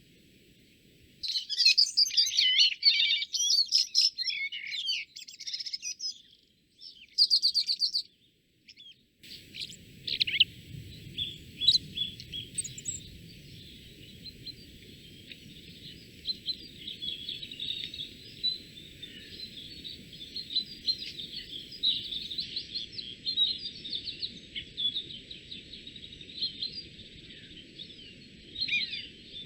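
Songbirds singing: a loud, fast, trilling song for about five seconds and a short rapid trill. About nine seconds in the sound changes abruptly to a steady chorus of chirping birds over a low rushing background noise.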